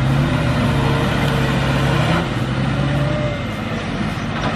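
Heavy diesel engine of a Komatsu WA450 log-loading wheel loader running under load. Its steady note drops slightly about two seconds in.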